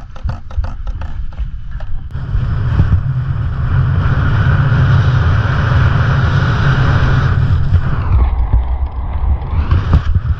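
Snowscoot skis scraping over packed, tracked snow at speed, with wind buffeting the action camera. A quick clatter of clicks comes first. The scraping drops away for about a second and a half near the end, as the skis leave the snow on a jump, and returns on landing.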